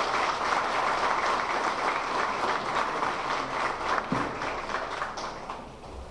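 Audience applauding after a speech, many hands clapping at once, dying away near the end.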